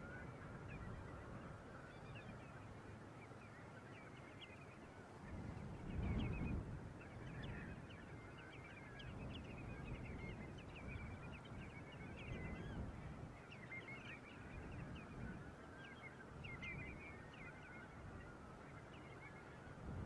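A large flock of geese calling, many short honks overlapping continuously, over a low rumble that swells about six seconds in.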